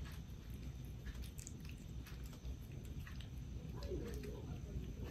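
Kitten eating wet food from a stainless steel bowl: quiet chewing with many small smacking clicks.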